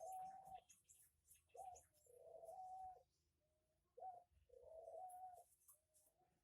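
A dove cooing over and over: a short note, then a longer held coo, the phrase repeating about every two and a half seconds.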